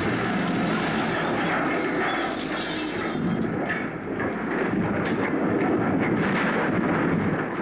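A car crashing into a brick wall, a long, loud crunch and grind of buckling metal drawn out as the crash plays in slow motion. It starts abruptly and dips briefly about four seconds in.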